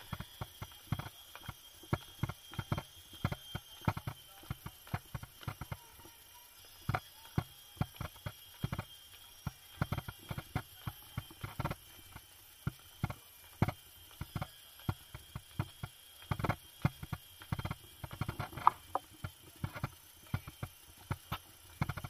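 Irregular hard knocks and clacks, several a second and unevenly spaced, over a faint steady high whine.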